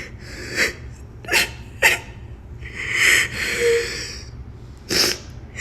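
A teenager crying with joy: short, sharp sobbing breaths and sniffs, a longer breathy sob about three seconds in, and another sharp sniff near the end.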